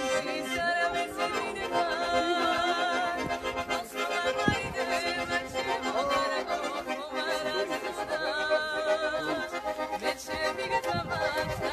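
Piano accordion playing a song, with a woman singing along in a wavering voice.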